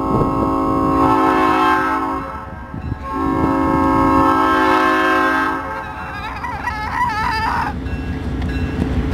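Train horn sounding two long blasts, each about two and a half seconds with a short break between, a chord of several steady tones over the low rumble of the passing train.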